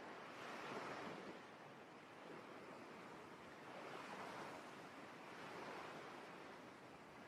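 Faint ocean waves washing ashore, swelling and fading several times.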